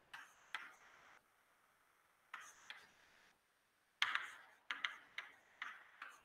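Chalk on a chalkboard while words are written: short taps and scratchy strokes in uneven bursts, busiest near the end.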